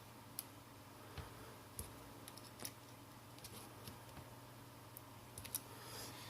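Faint, scattered light clicks and taps from handling a small phone and its parts during repair, with no set rhythm, over a low steady hum.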